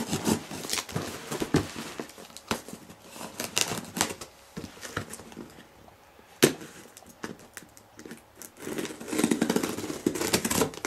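Utility knife slitting packing tape and cardboard along the edge of a shipping box, with scattered scrapes and clicks and one sharp click about six seconds in; near the end, packing tape is pulled off the cardboard in a dense scratchy rip.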